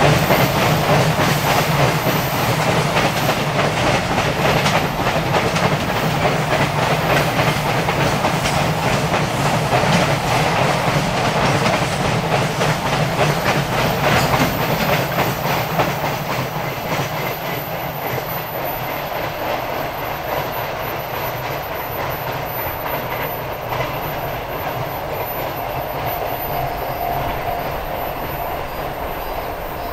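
Container wagons of a JR Freight train rolling past close by, wheels clacking over the rail joints in a quick run of beats. The sound slowly fades through the second half as the train draws away.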